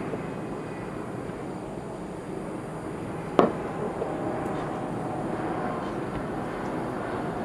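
Distant aerial firework shell bursting: one sharp bang about three and a half seconds in, over a steady background noise.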